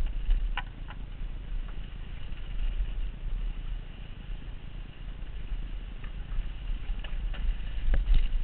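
Mountain bike rolling down a slatted wooden track and dirt trail: a steady low rumble of wind and vibration on a helmet-mounted microphone, with scattered clicks and knocks from the bike, a cluster of them near the end.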